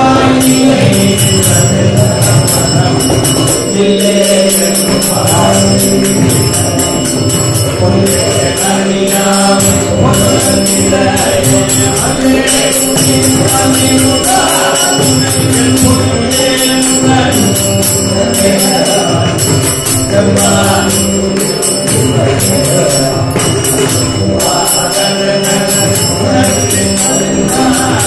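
Tamil devotional bhajan: voices chanting a sung melody over a steady harmonium, with two mridangams drumming and small hand cymbals ringing in time.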